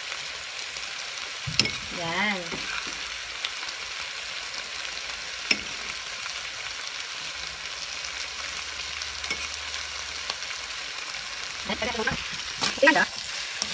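Shrimp and eggplant sizzling steadily in oyster sauce in a pan, with occasional clicks and scrapes of a spoon stirring against the pan, several of them close together near the end.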